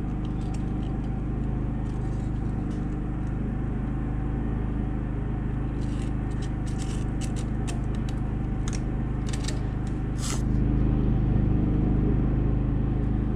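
Light clicks and small scrapes as the layers of an engine's multi-layer head gasket are handled on the cylinder deck, clustered in the middle, over a steady low mechanical hum that grows a little louder near the end.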